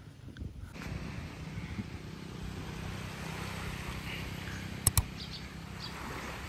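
Seaside ambience: a steady low rumble and hiss of wind and water at the shore, starting within the first second, with two sharp clicks about five seconds in.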